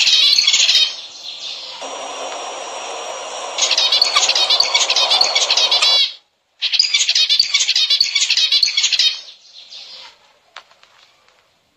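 Zebra finches calling and chirping in a busy chorus, in several bursts of rapid, dense chirps with a steady hiss between them. The chirping breaks off briefly just after halfway and fades away near the end.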